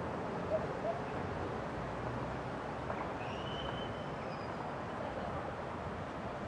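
PKP ET22 electric locomotive drawing its passenger train slowly into the station: a steady low rumble. A brief high thin squeal sounds about three seconds in.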